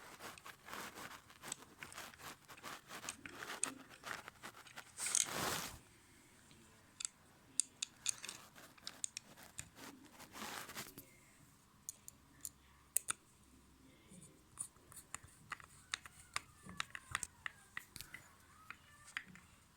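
Scattered small clicks and scrapes of a screwdriver and plastic parts as a plastic toy car is screwed back together by hand, with two short, louder rustling bursts about five and ten seconds in.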